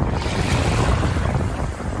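Rushing water, a loud, even wash that swells during the first second and eases slightly near the end.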